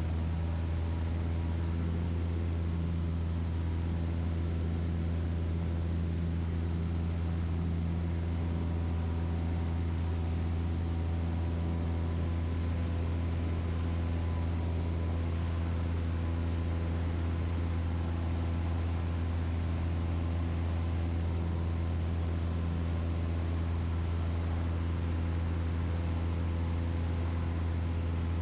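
Super Decathlon's four-cylinder Lycoming engine and propeller droning steadily at constant power, heard from inside the cockpit.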